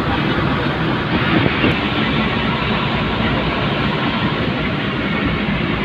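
Steady road and traffic noise from a car driving in city traffic, heard from inside the cabin: an even rushing rumble with no distinct events.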